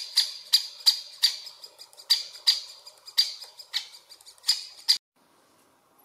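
Great spotted woodpecker giving a series of sharp, high 'kik' calls, about three a second at first, then slower and uneven. The calls stop abruptly about five seconds in, leaving near silence.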